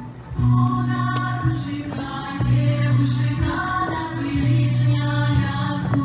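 A choir singing a folk song with accompaniment: held sung notes that change every second or two over a steady low bass line.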